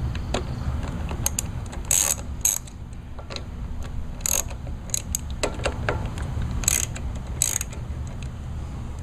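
Socket ratchet clicking in short runs as 10 mm bolts holding a mower's air box assembly are loosened, with scattered metallic clanks over a steady low hum.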